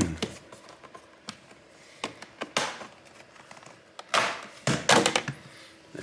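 Bottom cover of a Lenovo Yoga 530 laptop being pried off: scattered clicks as its plastic clips let go, then a cluster of louder clatters about four to five seconds in as the panel comes free.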